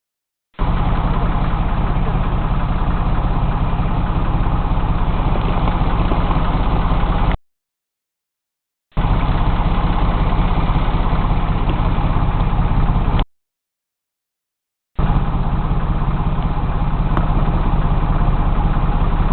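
Boat engine running steadily, a loud, even drone. It cuts out abruptly into dead silence twice and resumes just as abruptly.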